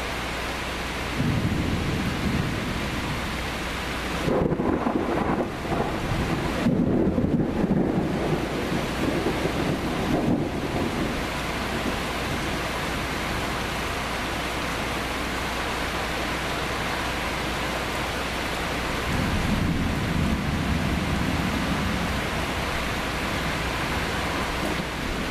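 Steady heavy rain with thunder rumbling several times, the longest roll between about four and eleven seconds in and another around twenty seconds in.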